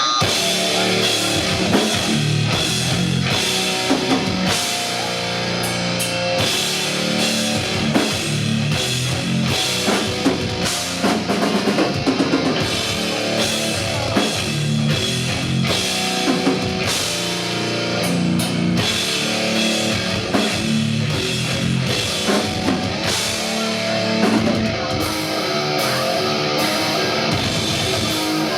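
Metal band playing live: electric guitars and a drum kit hammering steadily, with dense, frequent drum hits.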